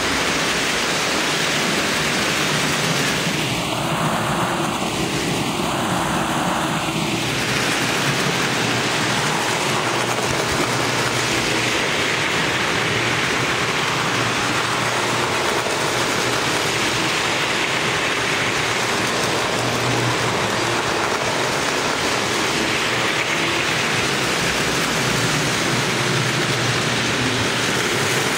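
Lionel toy trains running on three-rail track: a steady whirring rattle of their motors and wheels on the metal rails.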